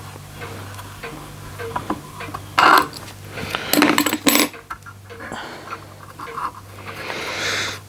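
Small metal tools and brass fittings of a model steam engine clinking and clattering on the workbench as it is taken apart: a sharp clatter about two and a half seconds in, a cluster of clinks just under four seconds in, and a scraping rustle near the end.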